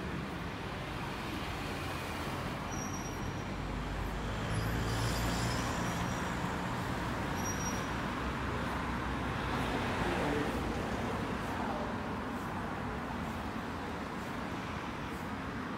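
Street traffic: a steady hum of cars passing on the avenue, with a vehicle going by louder about five seconds in and again about ten seconds in.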